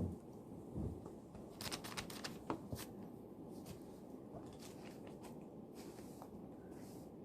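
Faint rustling of paper and small clicks of a pen at a study desk, clustered in the first few seconds and sparse after that, over quiet room tone.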